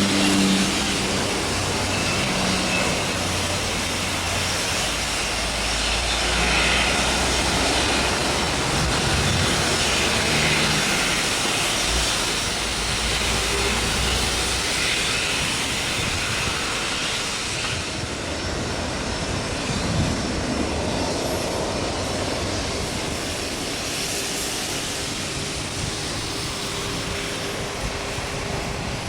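Aircraft engine noise at an airport: a steady, loud rush without breaks, with a low hum in the first few seconds that fades.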